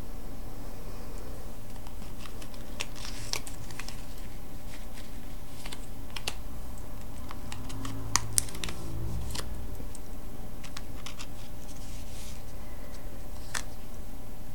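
Tarot cards being picked up, slid and flipped over on a cloth-covered table: scattered light clicks and taps, two sharper ones about eight seconds in, over a steady low hum.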